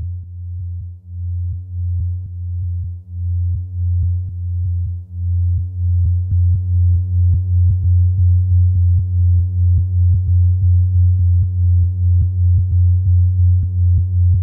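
Electronic background music: a deep synthesizer bass tone pulsing in waves, growing louder over the first six seconds and then pulsing faster and evenly, with light ticking sounds above it.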